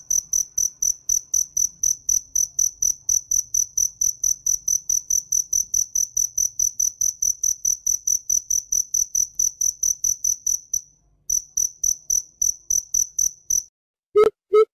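A cricket chirping at about five high, even chirps a second, with a short break about eleven seconds in, stopping shortly before the end. In the last half-second a coucal (bìm bịp) starts its deep hooting call, about three hoots a second.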